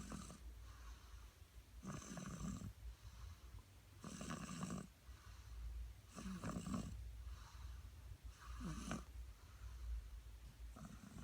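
One-year-old baby boy snoring in deep sleep: a snore about every two seconds, five in all, with fainter breaths between.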